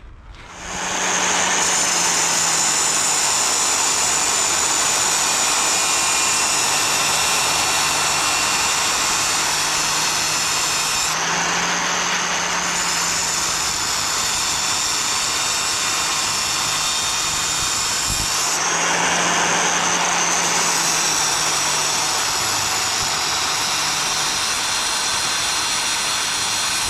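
Angle grinder running at speed and cutting through rusted steel bolts: a loud, steady high whine over a rushing noise. The whine shifts briefly twice as the disc bites, and the grinder cuts off near the end.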